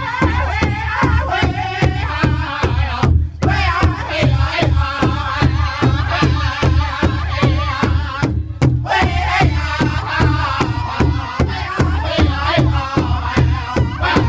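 Powwow drum group singing in unison around a large shared powwow drum, the men striking it together in a steady beat of about three strokes a second. The singing breaks off briefly twice, about three and eight seconds in, while the drumbeat carries on.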